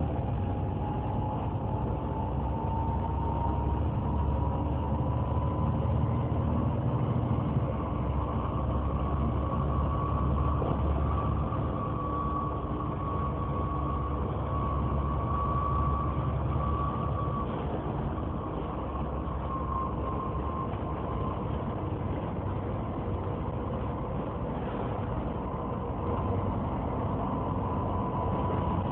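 Volvo B7TL double-decker bus's engine cooling fan whining like a vacuum cleaner, over the low rumble of the diesel engine. The whine rises in pitch over the first ten seconds or so, then holds steady.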